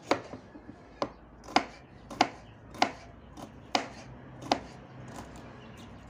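Kitchen knife chopping bitter melon on a wooden cutting board: about seven sharp chops, roughly one every two-thirds of a second, then a few fainter ones near the end.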